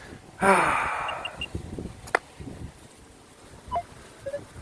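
A man's breathy sigh about half a second in, falling in pitch and fading over about a second, followed by a sharp click and a few faint short tones.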